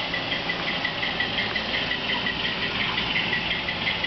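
HO-scale model diesel locomotive's DCC sound decoder playing a steady diesel idle through its small speaker, with a high-pitched pulsing about four or five times a second on top.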